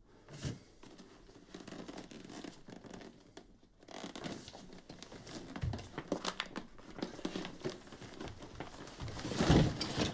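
Rustling, scraping and clicking handling noises from an inline skate and clothing as two people tussle over it, with a louder bump about nine and a half seconds in.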